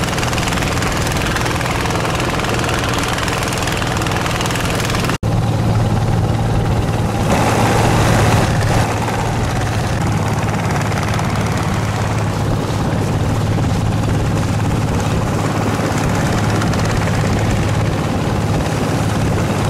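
Long-tail boat engine running steadily under way: a constant low drone under an even rushing noise, broken off for an instant about five seconds in.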